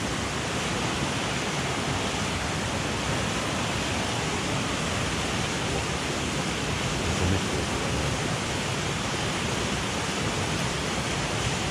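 Steady rushing of a mountain headwater stream, with a soft low thump about seven seconds in.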